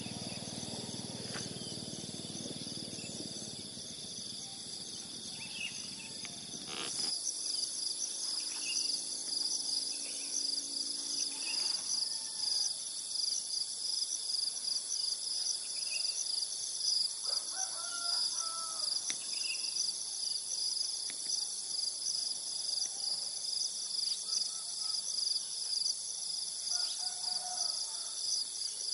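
Steady, high-pitched chorus of insects with a rapid pulsing, and a few faint, short bird calls here and there. A low steady noise lies underneath at first and stops abruptly about seven seconds in.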